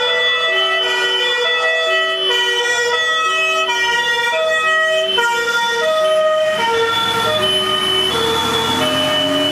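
Several German two-tone emergency sirens (Martinshorn) sounding at once from a convoy of fire brigade and rescue vehicles, their alternating tones overlapping out of step. From about seven seconds in, engine and tyre noise swells as a vehicle passes close.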